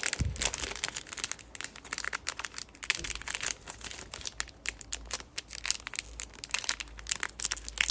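Foil trading-card pack wrapper being crinkled and torn open by hand, a dense run of irregular crackles. The wrapper rips raggedly instead of opening cleanly, a rough opening.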